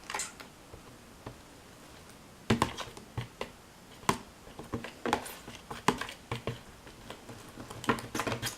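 Light, irregular clicks and taps from handling a container of white glue and laundry detergent being mixed into slime, starting about two and a half seconds in and bunching up near the end.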